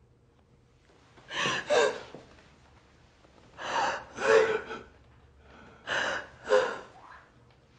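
A person gasping: three double breaths, about two seconds apart.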